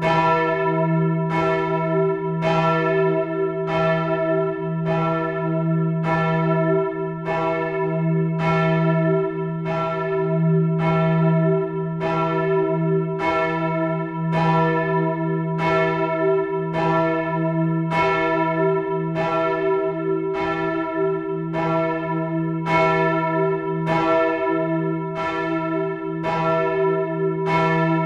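Church bell ringing, swung, with evenly spaced strokes about once a second and a low hum that carries on between strokes.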